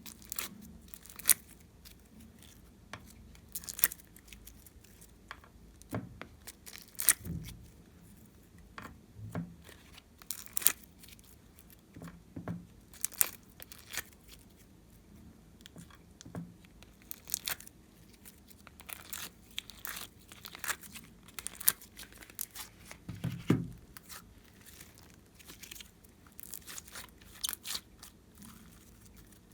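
Glossy slime being worked by hand: irregular sharp sticky pops and crackles, one or two a second, with a few deeper, duller presses.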